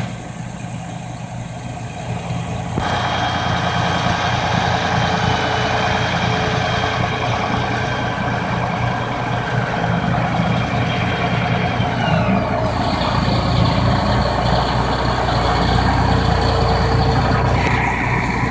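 Diesel engines of John Deere tractors running under load while one tractor is stuck in deep mud. The sound grows louder about three seconds in, with a thin high whine that slides away about twelve seconds in.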